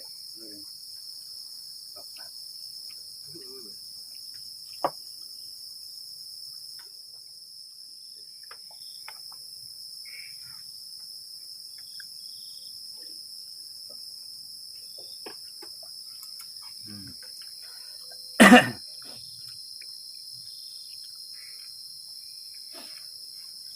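Chorus of crickets and other insects trilling steadily in a high, continuous band. A sharp click comes about five seconds in, and a brief loud sound about eighteen seconds in.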